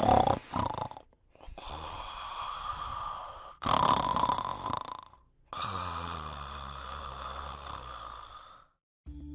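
A person snoring: several long snoring breaths a few seconds each, with short pauses between them, the last with a low rumble.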